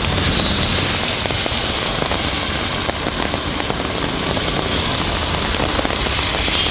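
Heavy rain falling on a city street: a dense, steady hiss of drops. Vehicles pass along the wet road.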